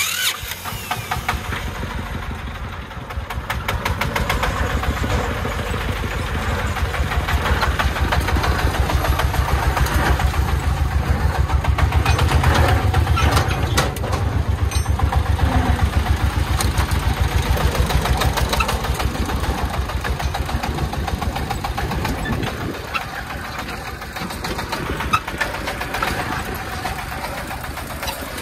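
A công nông farm truck's diesel engine starts abruptly and runs with a fast, even chugging beat as the truck drives off. It eases a little in loudness near the end.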